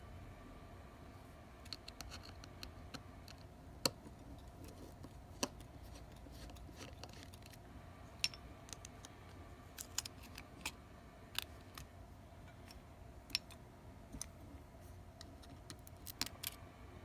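Small metal repair tools clicking and tapping on a phone's internal parts, with irregular, sharp clicks over a faint steady hum.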